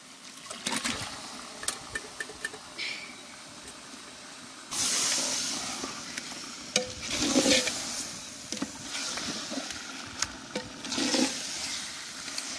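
Raw turkey pieces tipped into a pot of hot masala, with a sudden loud sizzle about five seconds in. A metal ladle then scrapes and clinks against the pot as the meat is stirred, and the sizzle flares up again several times.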